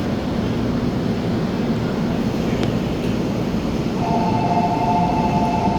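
Steady low rumble of a JR commuter train heard from inside a carriage. About four seconds in, a steady high two-note tone joins it.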